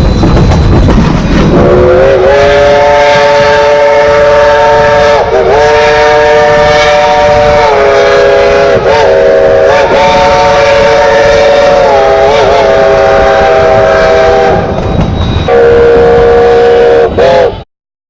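Steam locomotive whistle sounding a chord of several tones in one long blast of about thirteen seconds, its pitch dipping briefly a few times as the valve is worked, then a second, shorter blast. Under it runs a low rumble, and everything cuts off suddenly near the end.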